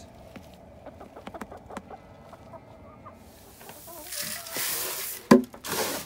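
Hens clucking softly, then a loud rustling and scuffling from about three seconds in, with one sharp knock shortly before the end.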